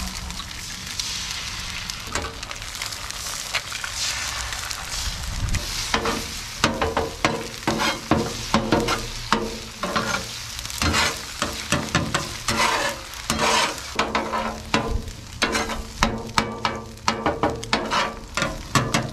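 Eggs sizzling on the hot steel top of a Blackstone griddle. From about six seconds in, a metal spatula chops and scrapes across the griddle again and again, scrambling the eggs, in quick clicks over the sizzle.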